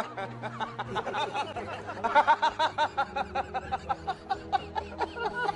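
Men laughing hard in quick repeated bursts that begin about a second in, over background music with steady held notes.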